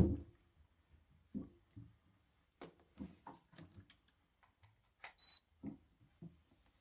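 Scattered light plastic knocks and clicks as the Steba LB10 cool-mist humidifier's water tank and basin are fitted together, then a short high electronic beep from the humidifier about five seconds in.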